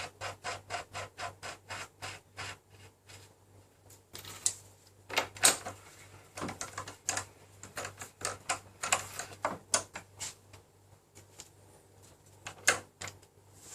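Ratchet wrench clicking in quick runs as the 22 mm wheel axle nut is tightened, about four clicks a second at first, then in shorter irregular bursts.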